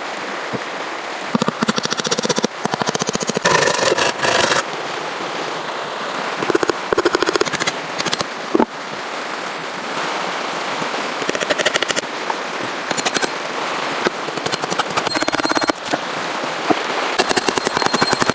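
Wood being sawn, heard as bursts of rapid rasping strokes over a steady rushing background.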